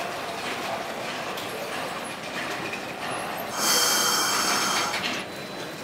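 Sapporo 3300-type tram standing at a stop, with steady background noise. About three and a half seconds in, a loud, high-pitched sound made of several steady tones over a hiss lasts about a second and a half, then cuts off sharply.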